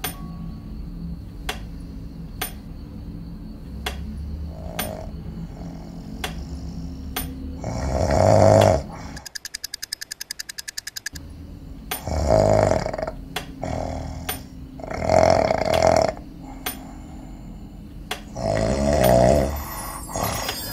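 A man snoring loudly: four long snores a few seconds apart, the first followed by a rapid fluttering exhale. A steady ticking goes on under them.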